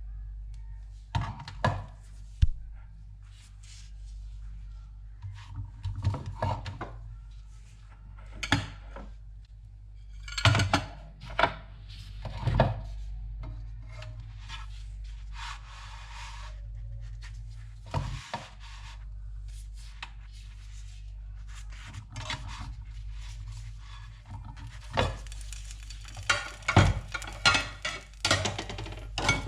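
Kitchen handling sounds: scattered knocks and short scrapes of utensils and food on a board or plate, over a steady low hum, getting busier near the end.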